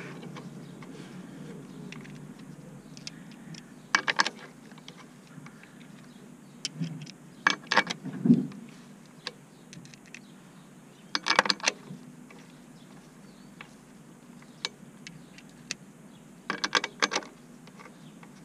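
Metal tools and clutch parts clicking and rattling in about four short bursts a few seconds apart, with a dull knock about eight seconds in, as a clutch assembly is worked on against a diesel engine's dual-mass flywheel.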